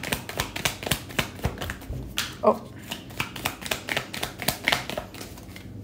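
Deck of tarot cards being shuffled by hand, a quick irregular run of card clicks and snaps, several a second, to draw a clarifier card. A brief short vocal sound about two and a half seconds in.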